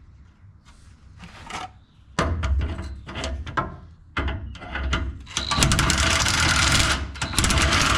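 Metal wrench scraping, clicking and clattering against rusted exhaust fasteners under a truck, mixed with rough rustling. It starts about two seconds in and grows into a dense, loud scraping near the end.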